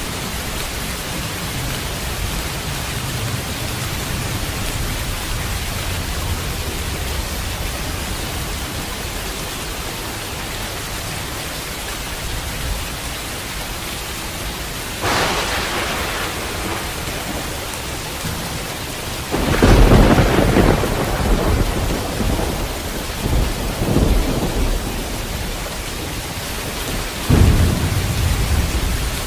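Steady heavy rain with low rolling thunder, then several thunderclaps about halfway through and later, the loudest a little after the middle, each rumbling on for a second or two.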